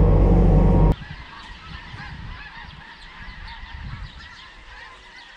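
A skid-steer loader's engine running loudly, cutting off suddenly about a second in; after it, a flock of geese honking, with many overlapping calls.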